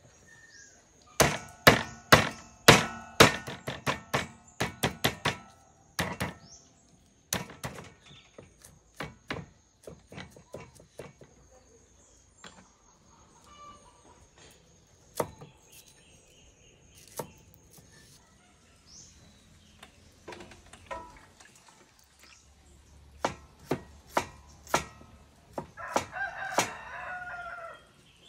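Cleaver chopping on a wooden chopping block: a quick run of strokes in the first few seconds, scattered strokes after, and another run near the end. A rooster crows near the end.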